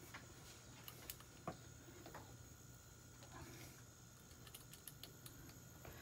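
Faint scattered small clicks and ticks of hand tools working a bullet piercing valve on a refrigerator's copper refrigerant line, over a low steady hum.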